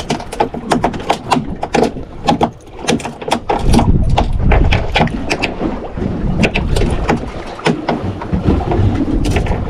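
Wind buffeting the microphone on an open fishing boat at sea, with water noise and a rapid, irregular run of sharp clicks and knocks.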